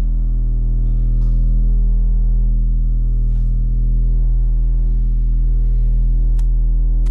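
Loud, steady low hum with many even overtones. A few faint clicks are heard, and a sharper click comes near the end.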